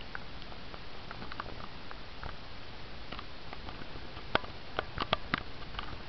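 Steady low hiss with scattered faint clicks and taps from a handheld camera being carried through rooms, with a few sharper clicks in a cluster near the end.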